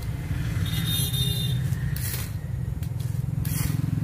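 Plastic toy aeroplane being handled and turned over, giving three short scraping rustles, over a steady low hum.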